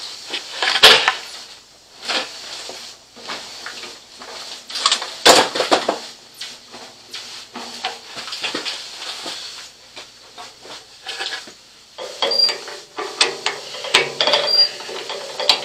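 Metal clicks, knocks and light clinks as a drill press chuck is worked by hand to change the bit, with the motor stopped. There are two louder knocks, about one and five seconds in, and a run of small ringing metal clinks near the end as the bit comes free.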